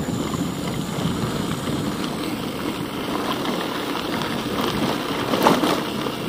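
Steady rushing noise of riding a bicycle: wind on the microphone and tyres rolling on the road, with a brief louder rush about five and a half seconds in.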